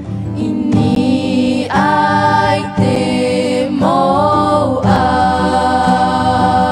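Background music with singing: voices holding long notes and sliding between pitches over a steady low accompaniment.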